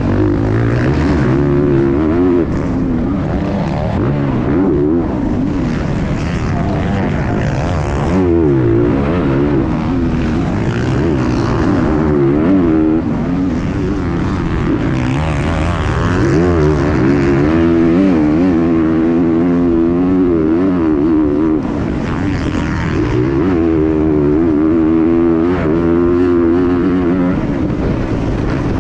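Motocross bike engine at race pace, revving up and down again and again as the rider shifts gears and rolls off and back on the throttle, heard from the bike's onboard camera.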